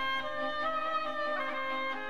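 Background music of long held instrumental notes, changing pitch a couple of times.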